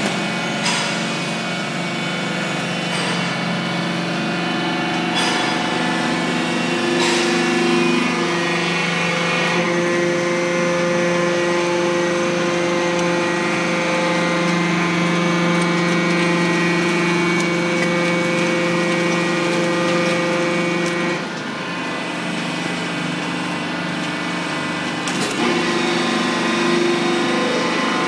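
Auto-tie hydraulic baler running: a steady machine hum with several pitched tones from its hydraulic drive, with a few sharp clicks from the wire-tying mechanism. The tones shift pitch a few times, and the sound drops in level about 21 seconds in before picking up again.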